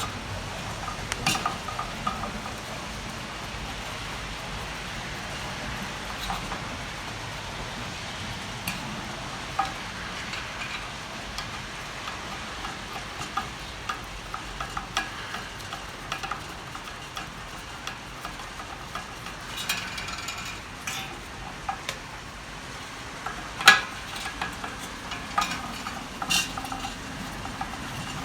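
Scattered clicks and metal clinks of hand tools working on a propane patio heater's mounting bracket, over a steady background hiss. The loudest clink comes about two-thirds of the way through.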